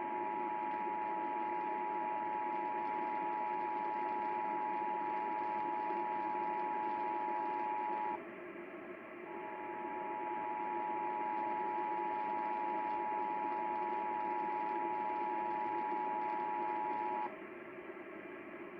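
Emergency Alert System two-tone attention signal, 853 and 960 Hz sounding together, received over radio with a steady hiss beneath it. It sounds for about eight seconds, breaks off for about a second, then sounds again for about eight seconds. It heads the audio message of a statewide required monthly test of the alert system.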